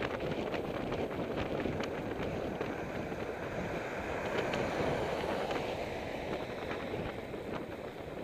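Steady wind rush on the microphone of a moving tandem bicycle riding along a tarmac road, with scattered small clicks and rattles.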